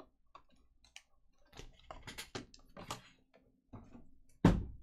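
Cardboard trading-card box and foil-wrapped pack being handled, giving a scatter of light clicks and rustles. A sharp thump about four and a half seconds in is the loudest sound.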